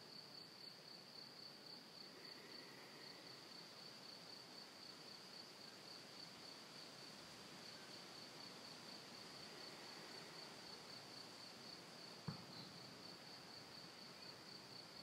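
Near silence with a cricket chirping steadily in an even, high-pitched pulse; one faint click about twelve seconds in.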